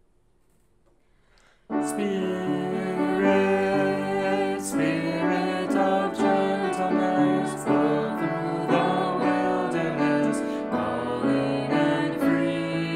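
Near silence, then about two seconds in a piano starts playing a hymn accompaniment: chords and a melody that continue steadily.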